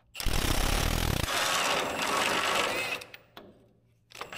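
Power wrench rattling rapidly as it runs out an axle mounting bolt, for about three seconds, then stopping and starting again near the end.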